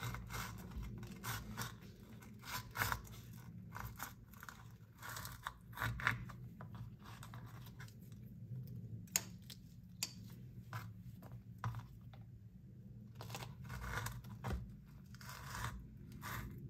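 Small knife slitting long green chilies lengthwise on a wooden cutting board: irregular small crunches of the chili skin, scrapes, and taps of the blade on the board. A faint steady low hum runs underneath.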